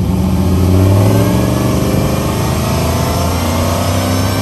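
Square-body Chevrolet Suburban's engine revved and held on the line to build boost for a launch. Its pitch sags slowly and drops away near the end.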